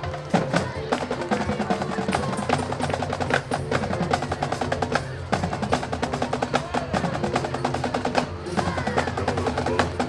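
Drums playing a fast, busy rhythm with snare rolls and sharp clicking strikes over a few held pitched notes.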